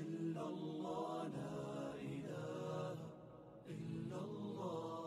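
Melodic vocal chanting: one voice drawing out long, wavering notes, with a short pause a little past the middle before the next phrase.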